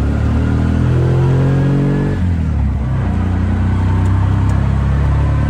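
Engine of an auto-rickshaw (tuk-tuk) taxi pulling along the road, heard from inside its open cabin. The revs climb over the first two seconds, fall back, then run steadily.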